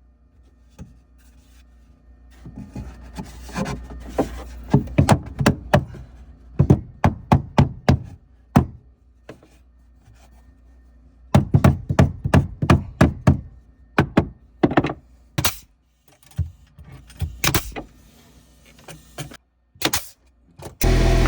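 Repeated knocks and thunks on wood, several runs of quick strikes with pauses between. Near the end a loud, steady motor starts up.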